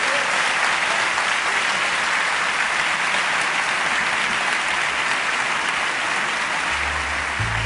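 Audience applauding steadily after a lecture ends, with music coming in underneath near the end.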